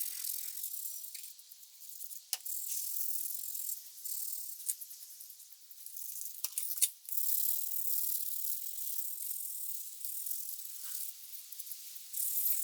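Sandpaper rubbed back and forth by hand over the epoxy handle scales of a knife, a dry scratchy hiss in runs of strokes broken by short pauses, with a few light clicks and taps.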